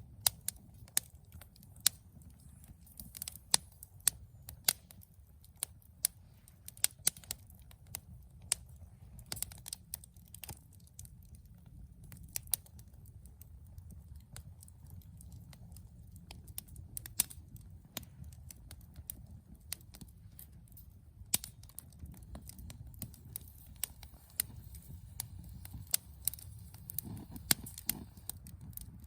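Wood fire burning in a Firebox Freestyle steel fire pit, crackling with sharp irregular pops over a low steady rumble.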